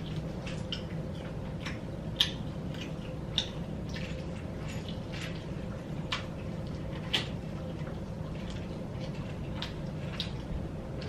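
Close-miked eating of a fried chicken wing: irregular wet mouth smacks and clicks of chewing, a few of them sharper, over a steady low hum.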